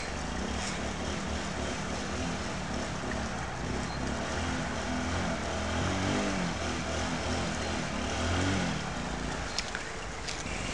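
Honda C90's small four-stroke single-cylinder engine revving up and down as it is ridden through mud, its pitch rising and falling, with a few sharp clicks near the end.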